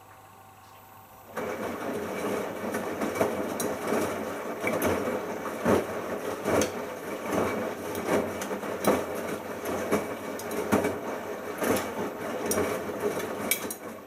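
Bosch Logixx WAS32461 front-loading washing machine in its first rinse, tumbling: about a second in the drum starts turning, and the wet shirts and rinse water slosh and slap in the drum with frequent knocks. The tumbling stops just before the end.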